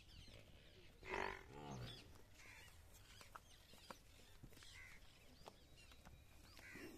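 A water buffalo calls once, about a second in: a call of about a second that slides down in pitch at the end. Small birds chirp faintly.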